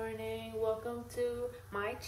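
A woman's voice, speaking in drawn-out, sing-song tones held for about half a second each.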